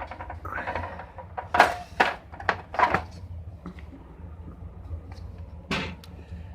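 Several sharp knocks and clatters of hardware and a power cord being handled and set down, over a steady low hum.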